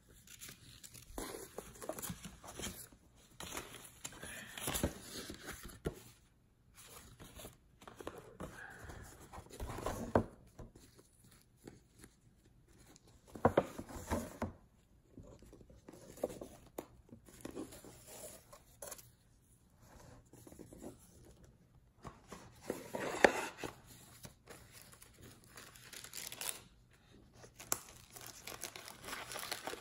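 Paper packaging being handled and unwrapped: a paper shopping bag, a ribbon-tied cardboard gift box and its paper lining rustling and crinkling in irregular bursts, with several louder rustles.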